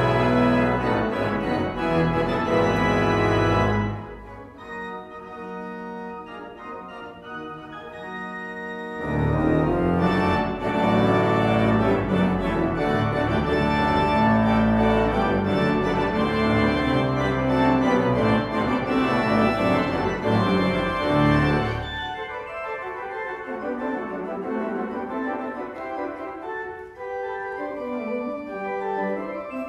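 Holtkamp pipe organ playing loud full-organ chords that alternate with quieter, lighter answering passages. It is loud for the first few seconds, drops quieter at about 4 s, comes back at full strength at about 9 s, and turns quieter again at about 22 s.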